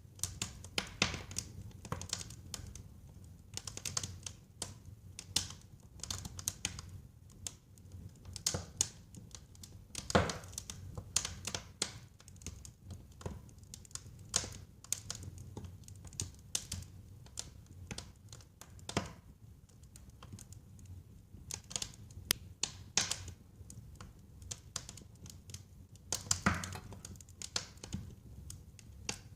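Wood fire burning in a fireplace, crackling with irregular sharp pops over a low, steady rumble of the flames. Two louder pops stand out, about ten seconds in and near the end.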